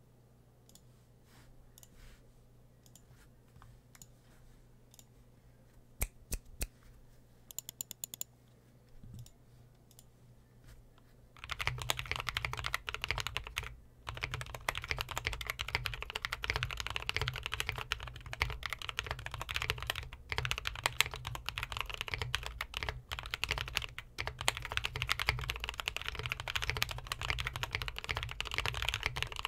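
Custom 60% mechanical keyboard with lubed NovelKeys Cream linear switches on a polycarbonate plate, in a foam-filled walnut case with tape mod and PBT keycaps. It is quiet at first, with a few scattered key clicks. Fast, continuous typing starts a little over a third of the way in and runs on, with one brief pause soon after it begins.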